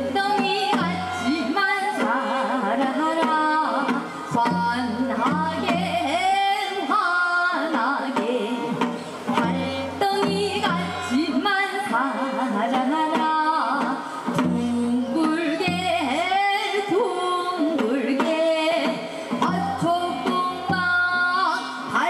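Korean traditional (gugak) music: a voice singing a bending melody over instrumental accompaniment and a recurring drum beat.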